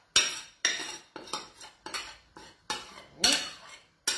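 Metal cutlery clinking and scraping against a ceramic bowl and plate in a quick, irregular series of taps as the creamy pecorino sauce is spooned over the pasta.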